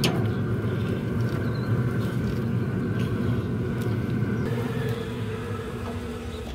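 Pellet grill's combustion fan running, a steady low hum with a faint higher whine above it.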